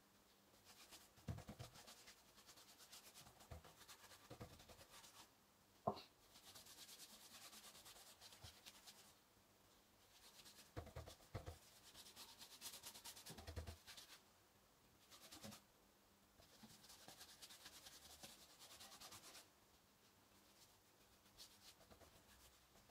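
Faint scrubbing of a paintbrush spreading wood stain across pine boards, in stretches of a few seconds each, with a few light knocks; the sharpest knock comes about six seconds in.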